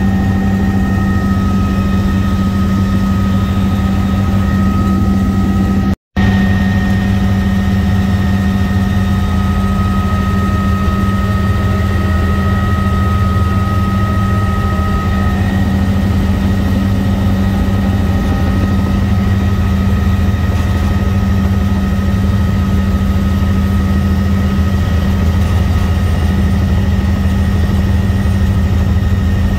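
Helicopter in flight: the turbine engine and rotor running with a steady deep hum and a steady high whine above it. The sound cuts out for a split second about six seconds in.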